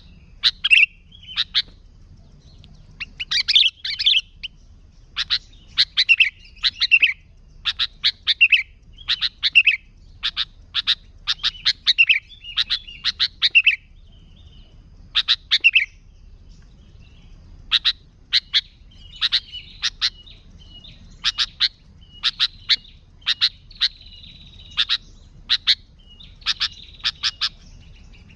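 Sooty-headed bulbul (kutilang) singing loudly: short phrases of sharp chirping notes repeated about every second, with a short pause about halfway through.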